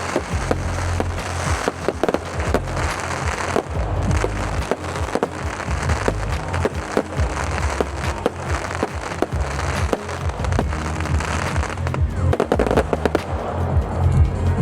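Fireworks display: a rapid, irregular run of bangs and crackles from shells and cakes going off, over music with a heavy bass line.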